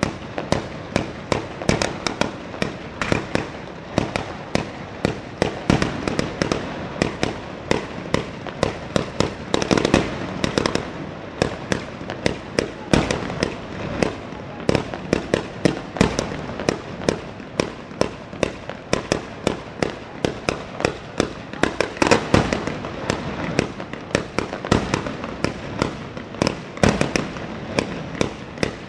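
A long, rapid barrage of Ligurian mortaletti, small black-powder mortars fired one after another in sequence. Sharp bangs come several a second, overlapping, without a pause.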